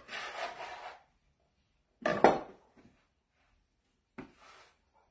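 Metal bench scraper scraping across a floured wooden pastry board for about a second. A louder clatter follows about two seconds in, and a lighter knock about four seconds in, from the scraper and dough being handled on the board.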